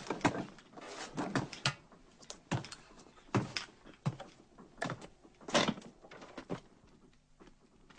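A series of irregular knocks and thuds, a dozen or so spread over several seconds, the loudest about five and a half seconds in, growing sparse and faint near the end.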